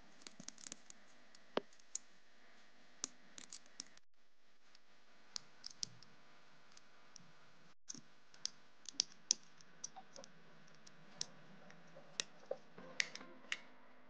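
Snap-off utility knife blade scraping and trimming the edges of a small moulded key, making irregular sharp clicks and short scrapes, the loudest clustered near the middle and end.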